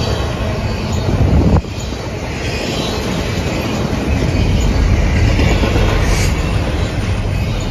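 Double-stack intermodal freight train rolling past close by: a steady heavy rumble of wheels on rail. It swells and then drops off suddenly about a second and a half in, and grows louder again in the last few seconds as the mid-train DPU diesel locomotive comes by.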